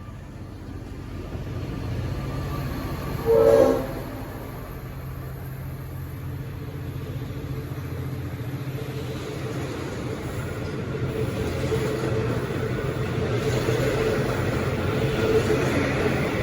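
A short blast on a Leslie RS5T air horn about three seconds in, then the diesel locomotive-hauled train's engine hum and wheel noise building steadily louder as it departs.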